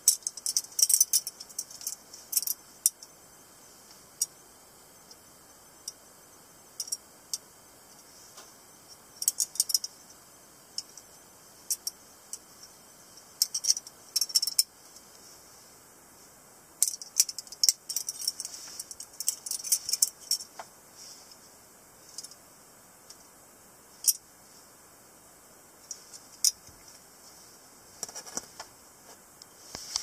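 Butterfly knife (balisong) being handled and flipped: sharp metallic clicks and clacks of its handles, coming in irregular flurries with short pauses between them.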